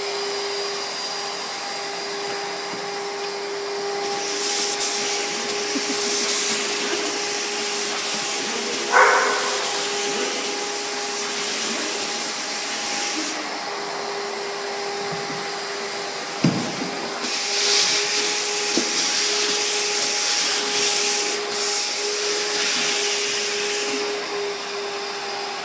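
Steady hum of an electric motor with rushing air, its hiss swelling and easing at times. A brief sharp sound about nine seconds in and a thump around sixteen seconds.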